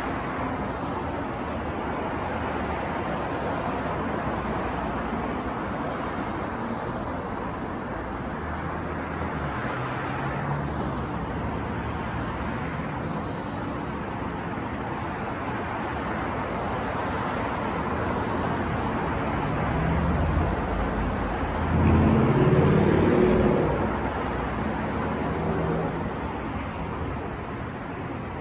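City street traffic: a steady wash of passing cars, with one vehicle's engine growing louder as it passes close near the end, then fading.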